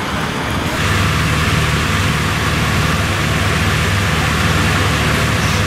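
Passing road traffic, then from about a second in a steady low vehicle engine running close by, with a broad even hiss underneath.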